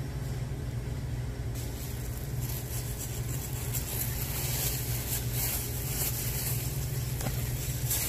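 Large plastic bags rustling and crinkling as they are handled, starting about a second and a half in, over a steady low machine hum.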